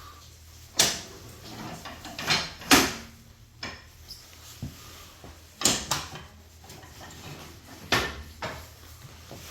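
A series of irregular sharp knocks and clunks, about nine in all, over a low steady background.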